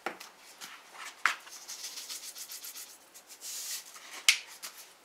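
Black pepper and salt dispensed from their containers onto a bowl of flour: a quick run of fine scratchy ticks, then a short hiss about three and a half seconds in. A few sharp clicks of the containers being handled, the loudest near the end.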